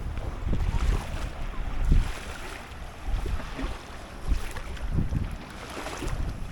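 Wind buffeting an action camera's microphone in irregular low gusts, with the wash of open water around a small boat.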